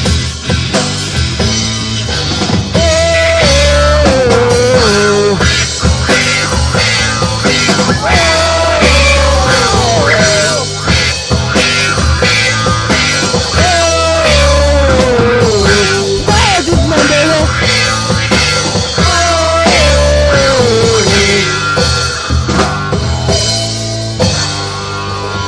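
Rock band playing an instrumental passage: drum kit, bass and guitar, with a lead melody that slides downward in repeated phrases. The band thins out slightly near the end.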